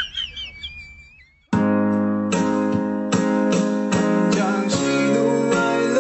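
A high, wavering tone fades out over the first second. Then background music on acoustic guitar starts suddenly about a second and a half in, with steady plucked and strummed chords.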